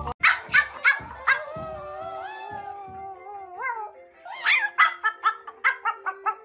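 A small white fluffy dog yipping, then giving a long wavering howl that rises and falls in pitch, then a quick run of yips, over background music.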